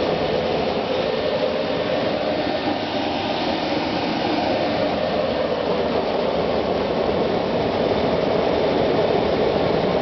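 Homemade wood-fired blast furnace running hard, a steady roar of fire and blown air that grows slightly louder near the end.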